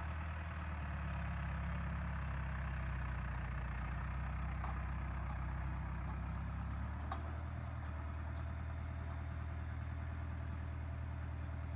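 An engine idling steadily, its tone shifting slightly about seven seconds in, with a few faint clicks.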